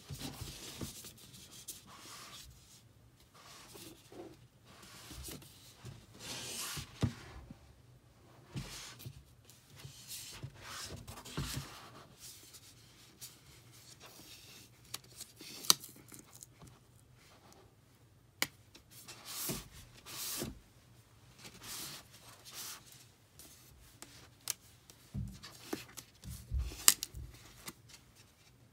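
Hands handling and turning a cardboard product box: irregular rubbing and sliding of fingers on the card, with a few sharp taps and clicks.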